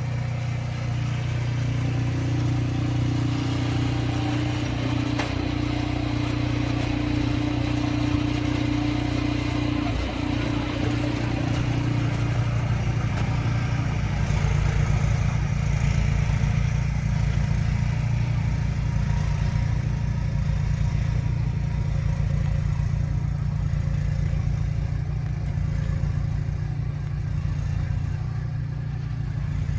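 An engine running steadily. Its note turns rougher and more pulsing about halfway through.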